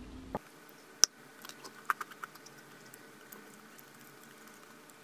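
Light handling clicks of a ceramic plate and small matcha cookies on a table: one sharp click about a second in, then a few soft ticks as a cookie is picked up and broken.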